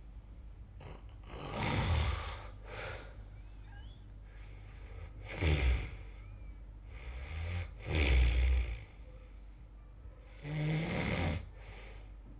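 A person snoring: four loud snores about three seconds apart, with softer breaths between them.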